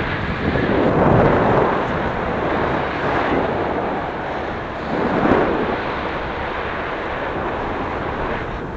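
Steady wind noise buffeting the microphone of a camera travelling along a road, swelling about a second in and again about five seconds in.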